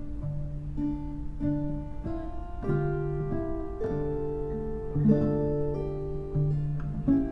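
Background music: guitar playing a melody of plucked notes.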